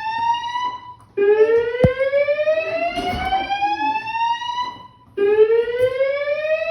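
SpectraAlert Advance fire alarm speaker sounding a slow whoop: a tone that rises steadily in pitch over about three and a half seconds, breaks off briefly, then starts low again, repeating. A single sharp click about two seconds in.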